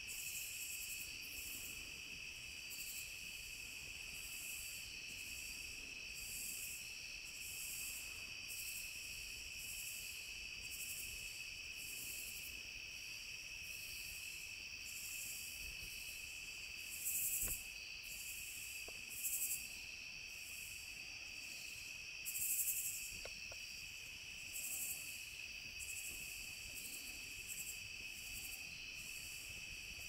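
Night insect chorus: crickets trilling steadily, with a higher pulsing call repeating about once a second that swells louder a few times past the middle. A faint click about halfway through.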